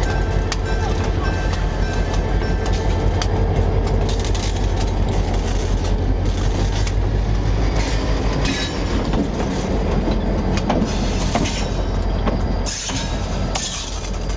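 Diesel-electric road-switcher locomotive rolling slowly past, its engine running with a steady low drone, and its wheels clicking over the rail joints.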